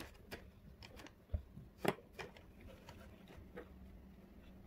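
Several light taps and knocks of painting things (brush, potato stamps, paint jars) handled on a tabletop, the loudest about two seconds in.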